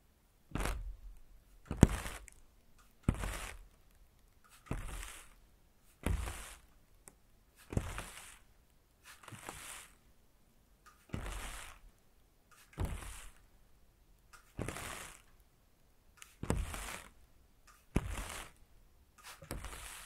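Water spritzed in short bursts onto a wet, beaded surface. There are about a dozen spritzes, each a brief hiss with a soft thump at its start, coming at uneven gaps of roughly one and a half seconds.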